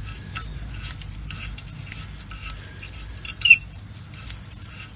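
Faint scraping and ticking of a thin steel rod worked in a small hole in a brake disc's hub face, with one short, high squeak about three and a half seconds in.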